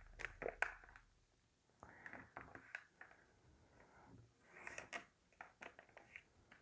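Faint rustling and scraping of a square sheet of origami paper being folded and creased by hand, in a few short spells with small clicks.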